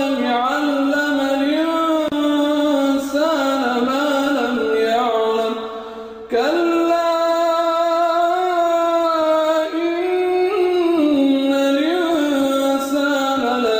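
A solo voice reciting the Quran in tarannum, the melodic recitation style. It holds long, wavering notes with ornamented turns, pauses briefly for breath about six seconds in, then goes on.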